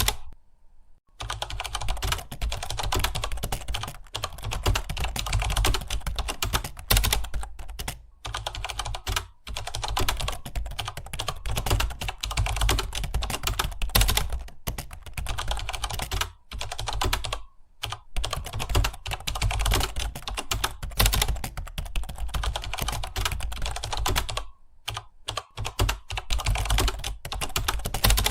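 Fast, continuous typing on a computer keyboard: a dense stream of key clicks broken by a few brief pauses.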